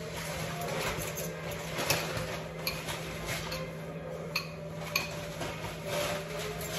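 Metal fork scraping and clinking against a glass mixing bowl while beaten eggs are poured into a frying pan, with a few sharp clinks that ring briefly. A steady low hum runs underneath.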